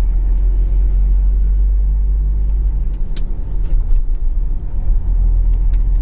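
Steady low rumble of a car's engine and tyres on the road, heard from inside the cabin, with a couple of light ticks about halfway through and near the end.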